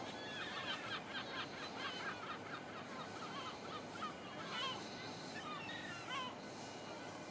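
Birds calling in quick series of short chirps, thickest in the first couple of seconds and then more scattered, over a steady background hiss.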